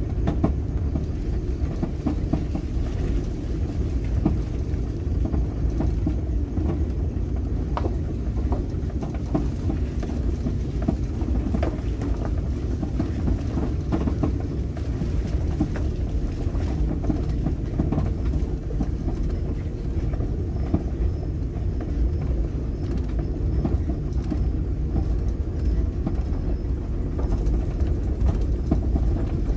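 Car driving along a road: a steady low rumble of engine and tyres, with scattered light ticks and knocks through it.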